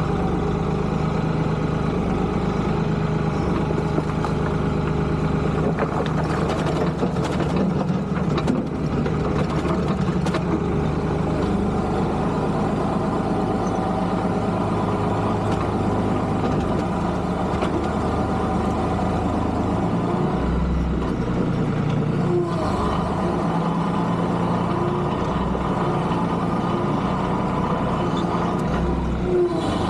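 Tractor engine running steadily, with a few sharp knocks between about six and ten seconds in.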